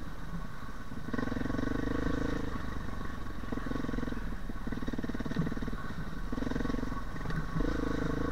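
Off-road motorcycle engine running under a rider on a dirt trail, the throttle opened and eased off repeatedly so the engine swells in about five surges, each half a second to a second and a half long.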